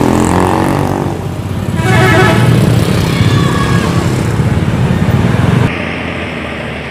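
Street traffic: motorcycle and bus engines running, with a vehicle horn sounding briefly about two seconds in. Near the end the sound drops suddenly to a quieter engine hum.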